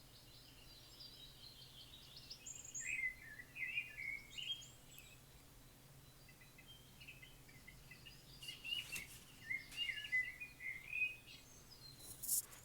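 Songbirds chirping and warbling in quick, high phrases that come in two spells, with a faint steady hum underneath.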